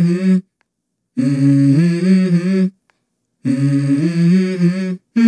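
Music: sustained hummed vocal chords in three short phrases, each stepping between a few notes and cutting off suddenly into silence before the next.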